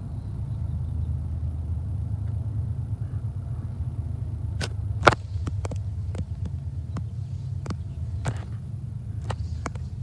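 Low, steady throbbing rumble of distant heavy diesel engines, with a few sharp clicks from about halfway through, the loudest near the middle.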